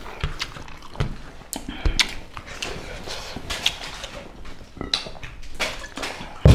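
Close-up eating sounds: chewing, lip smacks and small irregular clicks from hands working food on steel plates, with a sharp knock right at the end.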